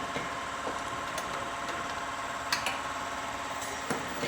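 A few light clicks and knocks of hand tools on a car's front suspension parts as the driveshaft and ball joint are fitted to the hub carrier, over a steady background hum.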